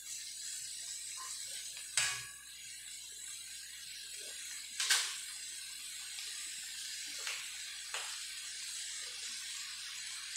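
String beans and ground meat sizzling steadily in a wok over a gas flame, with a couple of sharp knocks about two and five seconds in and a few fainter ones later.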